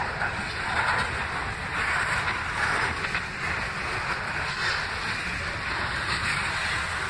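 Freight cars of a slow-moving train rolling past: a steady rumble of wheels on rail, with a higher rushing sound that swells and fades about once a second.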